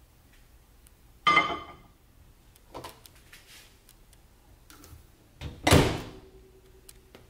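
A glass of water set down on a microwave's glass turntable with a short ringing clink about a second in, then the microwave door shut with a loud thunk near the end.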